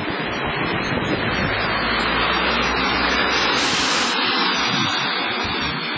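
Steady rushing noise of a wet city street in the rain, with a low rumble from about a second and a half to four seconds in.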